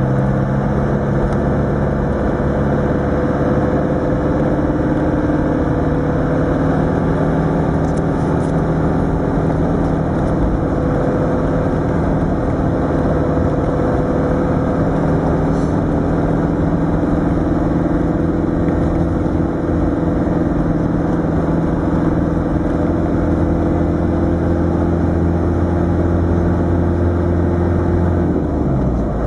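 Land Rover Defender 110's 300Tdi four-cylinder turbodiesel engine running steadily under light load, heard from inside the cab, its note creeping slowly higher, then dropping about a second before the end.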